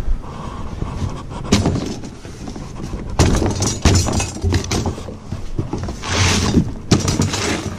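Cardboard box being pulled open and handled: flaps rustling and scraping, with a string of sharp knocks and rattles as the box and the steel hydraulic lines inside are moved. The rustling is loudest about six seconds in.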